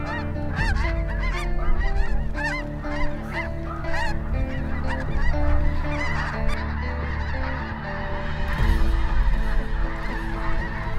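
A flock of snow geese calling, many short, high honks overlapping continuously as the birds circle in overhead, over a steady low hum.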